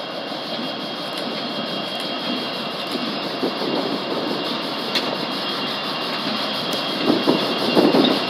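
Several Norfolk Southern diesel freight locomotives running past in one consist, a steady engine and rail noise that grows louder as the lead unit comes alongside near the end.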